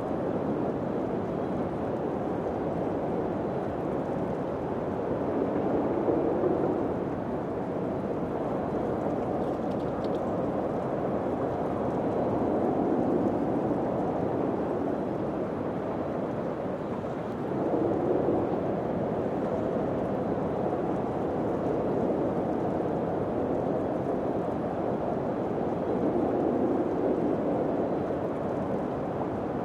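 Wind blowing steadily, with gusts swelling louder and dying back about four times.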